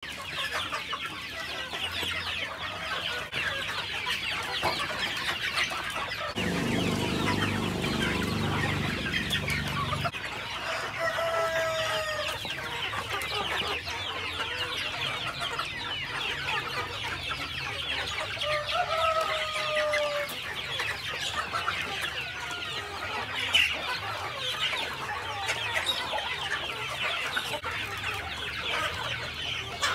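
A large flock of free-range chickens clucking and chattering all at once as they crowd around a feed drum, with a rooster's call standing out twice, about eleven and nineteen seconds in. A low rumble sounds for a few seconds near the start.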